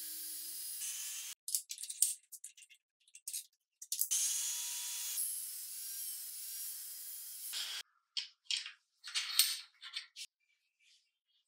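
Angle grinder with a thin cut-off disc cutting steel, a steady high grinding hiss and whine that cuts off suddenly about a second in. A few short metal clicks follow, then a second cut runs from about four seconds to nearly eight seconds in. Light metallic clicks and taps of pliers on the cut piece come near the end.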